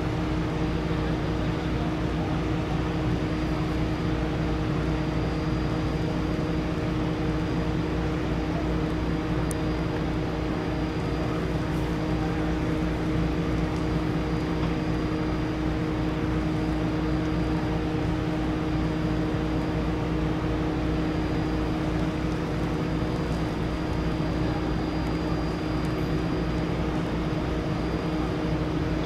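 Steady engine drone at idle, holding a few fixed tones over a low rumble without any change in pitch or level.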